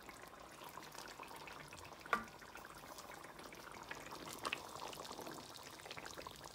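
Chicken curry gravy simmering faintly in a wide pan as a spatula stirs through it, with soft ticks and a sharper tap about two seconds in.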